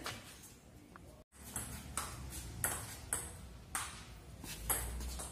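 Table tennis rally: the ball clicking back and forth off the paddles and the table, a quick irregular series of sharp hits starting a little over a second in.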